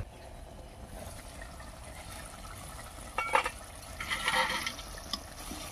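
An aluminium pot lid clinks briefly against the pot about three seconds in as it is lifted off. A thick paneer-and-pea curry then bubbles in the open pot.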